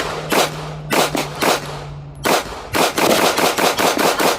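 SIG Sauer P365 Fuse 9mm pistol firing a magazine: a few spaced shots, then rapid fire at about six shots a second from about three seconds in.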